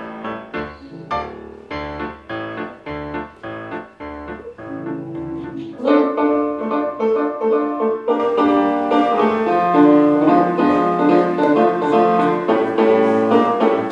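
Instrumental piano music: a run of separate notes that grows louder and fuller about six seconds in, with longer held chords.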